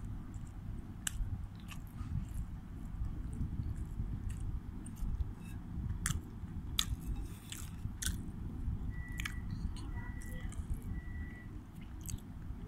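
A small child chewing and smacking while eating, with scattered sharp mouth clicks over a steady low rumble.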